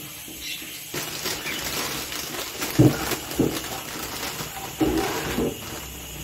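Plastic produce bag crinkling and rustling as salad leaves are shaken out of it into a stainless steel sink. A few brief low-pitched sounds come about three and five seconds in.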